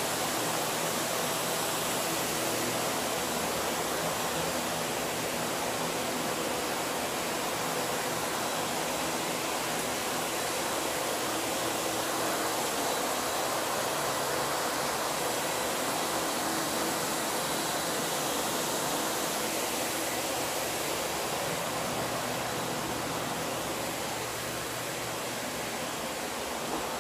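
Water-damage drying equipment, axial air movers and other blower units, running together: a steady rushing of fan air with a faint hum under it.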